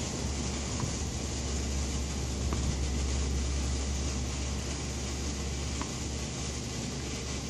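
Steady low rumble with a constant hiss of outdoor background noise, with three faint short ticks spread through it.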